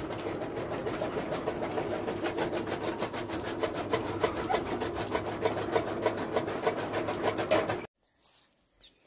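Steady, fast rhythmic rasping, several strokes a second over a low steady hum. It cuts off abruptly about eight seconds in, leaving only faint high insect chirping.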